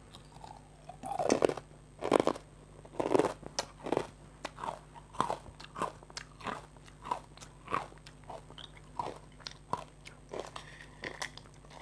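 A person chewing a mouthful of crunchy basreng (crisp fried meatball slices). The loudest crunches come in the first three seconds, then smaller ones follow about twice a second.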